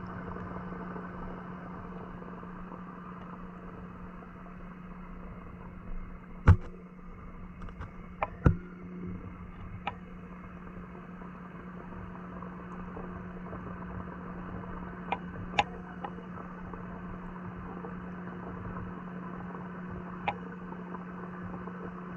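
Muffled underwater sound in a pond, heard through a submerged camera: a steady low hum with a handful of sharp clicks and knocks. Two louder knocks come about six and eight seconds in, and fainter clicks follow later.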